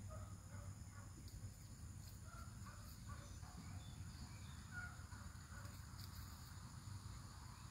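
Faint outdoor ambience: a steady high insect drone, with scattered short, faint bird chirps and a low hum underneath.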